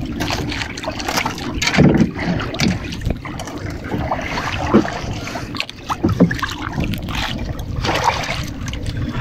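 Water sloshing and splashing around a small outrigger boat (bangka), with scattered knocks and wind buffeting the microphone.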